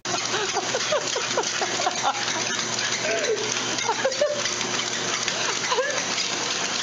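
Treadmill running under a dog: a steady hiss, with many short, faint squeaky tones over it.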